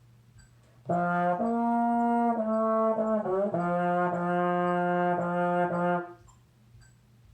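Solo trombone playing a short phrase of four long held notes, with a slide down between notes in the middle, after about a second of quiet. A faint metronome ticks steadily at about two beats a second (112 bpm) underneath.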